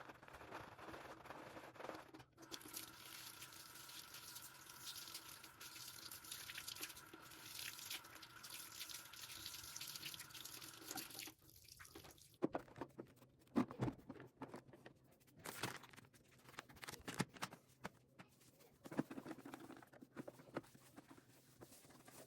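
Water running steadily from a tap into a sink, cut off about eleven seconds in, followed by scattered knocks, taps and drips as things are handled.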